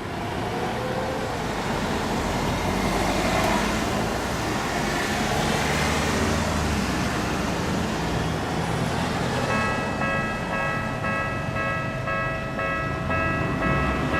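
Road traffic passing at a railway level crossing, then about nine and a half seconds in the crossing's electronic warning bell starts up, a repeating pulsed ding, the signal that a train is approaching and the barriers are coming down.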